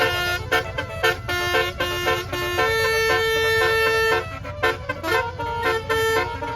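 A bus's multi-tone telolet horn plays a quick tune of stepping notes. Most notes are short, and one is held for about a second and a half midway. Underneath runs a low rumble from the vehicle's engine.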